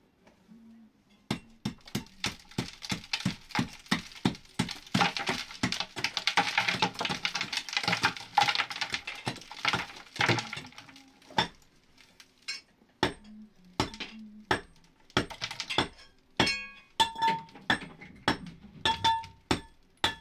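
Rapid, repeated sharp clinking taps of hard objects striking one another, about two to three a second, busiest in the middle; the later strikes ring with a clear tone.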